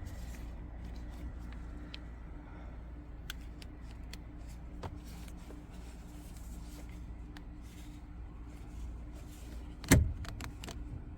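Scattered small clicks and knocks from a car's interior part being handled while its release catch is searched for, with one loud sharp knock about ten seconds in. A steady low hum runs underneath.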